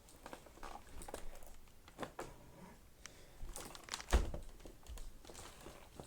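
Handling noise from a Dyson DC07 upright vacuum cleaner: irregular light clicks and rustles of its parts being moved, with one louder knock about four seconds in. The motor is switched off.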